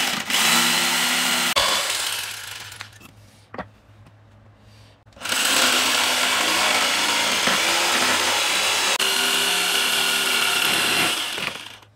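Corded electric jigsaw sawing through a wooden plank. It winds down about two seconds in, there is a quiet gap with a single click, then it starts up again about five seconds in and keeps cutting until it stops near the end.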